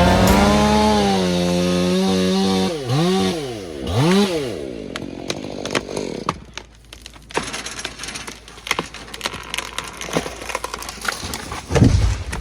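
Two-stroke chainsaw running at full throttle in a cut, then let off and revved twice, followed by a long run of wood cracking and snapping as the hemlock goes over, and a heavy thud near the end as it hits the ground.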